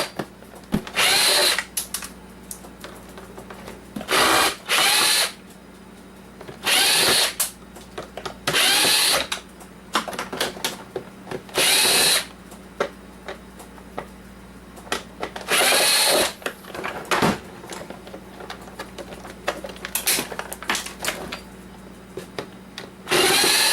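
Power drill-driver running in short bursts of about half a second to a second, roughly eight times, its motor pitch rising and falling with each run as screws are backed out of a coffee maker's housing. Light clicks of parts being handled come between the runs.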